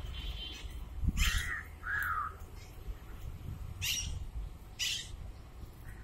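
Parakeets giving short, harsh screeching calls, four of them about a second or two apart, over a low rumble.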